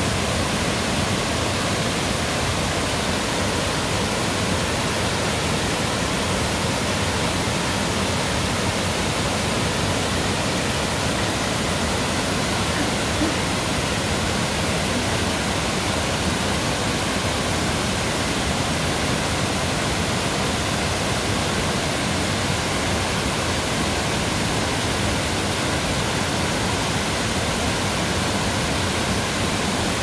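Mountain waterfall: a steady, even rush of falling water that does not change.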